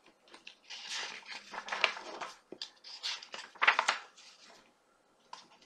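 Paper rustling as the pages of a hardcover book are handled and turned, in two stretches a couple of seconds long.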